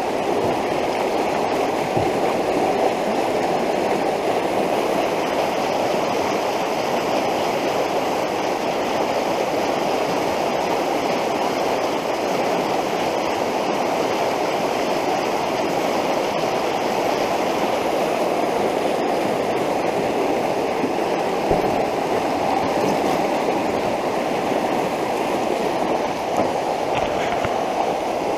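Rushing flood water of a swollen creek: a steady, even rush of fast-moving water with no breaks.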